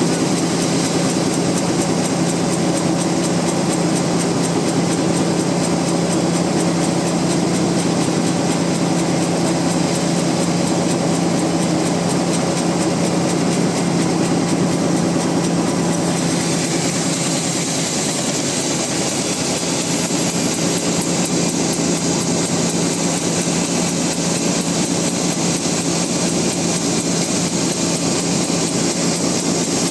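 Band sawmill running steadily with a constant hum, its blade sawing through a large rain tree (trembesi) log. The sound changes slightly about halfway through.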